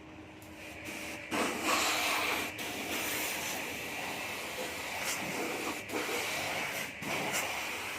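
Hissing spray of water that starts a little over a second in and breaks off for an instant a few times.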